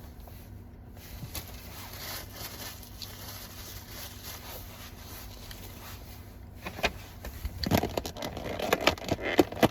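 Close-up eating of a crunchy breaded boneless chicken wing: scattered soft mouth sounds, then dense crisp crunching and chewing clicks in the last three seconds, over a faint steady low hum.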